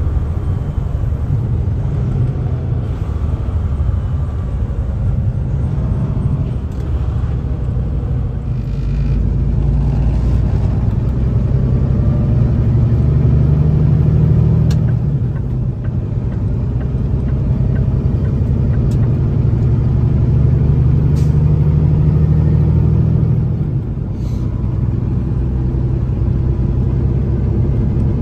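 Kenworth T680 semi truck's diesel engine running under way, a steady low drone heard inside the cab along with road noise. The engine note swells louder through the middle and eases off again near the end.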